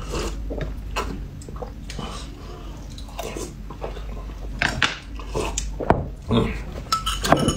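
Eating and drinking at a table: sips and slurps from a glass mug, chewing, and light clicks of chopsticks against dishes and cups.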